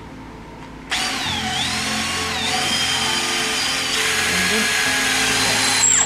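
Cordless drill boring a long pilot hole into the edge of a jarrah rudder blade. It starts about a second in, its motor whine dipping and rising in pitch as the bit bites, and stops just before the end.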